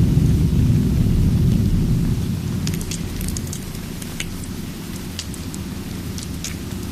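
Steady rain with a deep thunder rumble that dies away over the first couple of seconds; from about halfway, sharp scattered pops of a crackling wood fire come through.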